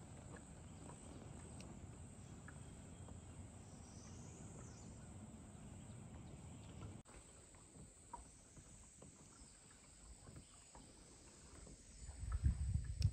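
Quiet riverside ambience: a thin, steady high insect drone over a low rumble, with a few faint ticks. Near the end comes a louder run of low thumps.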